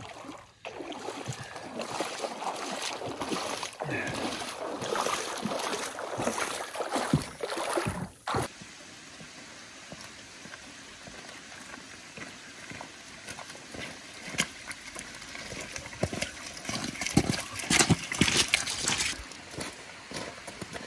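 Shallow water splashing and sloshing around an inflatable boat and a wading dog; about eight seconds in it stops suddenly, giving way to a quieter stretch of scattered clacks and crunches of footsteps on a pebble beach.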